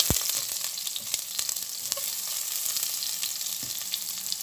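Onions, garlic, ginger, bay leaves and star anise sizzling and crackling in hot oil in a pot as they are sautéed, stirred with a silicone spatula. There is a low thud right at the start.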